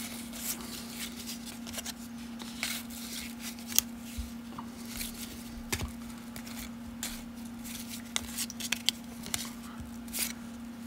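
1992 Upper Deck baseball cards being flipped through by hand: cardboard cards sliding and snapping against the stack in quick, irregular flicks, over a steady low hum.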